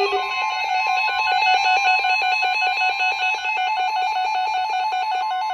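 NOAA Weather Radio warning alarm tone: a steady high tone, the attention signal that comes ahead of a warning message, layered with a fast, evenly pulsing electronic beeping.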